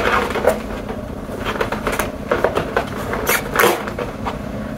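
Cardboard advent calendar being handled and its small perforated door pried open: irregular scraping and crackling of card, over a steady low hum.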